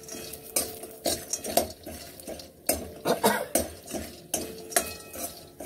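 Metal spatula scraping and tapping against a non-stick kadhai in quick, irregular strokes as garlic, dried red chillies and urad dal badis are stirred in a little oil.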